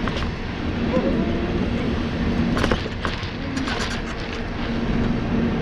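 Mobility scooter's electric drive motor humming steadily as it rolls along a paved path, over a low rumble of movement, with a handful of sharp clicks and taps around the middle.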